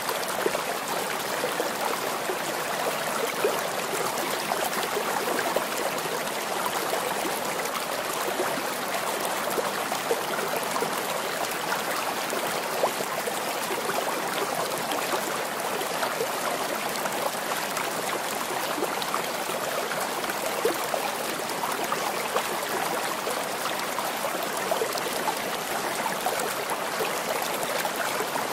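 Steady rush of running water, like a stream, even and unbroken throughout.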